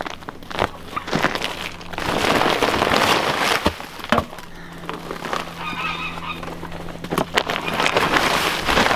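Plastic greenhouse sheeting rustling and crinkling as it is handled, with many small crackles and two louder stretches, about two seconds in and near the end.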